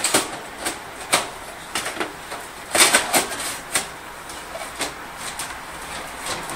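Scattered clicks and clacks of computer-case parts being handled and worked loose, with a quick run of sharper clacks about three seconds in.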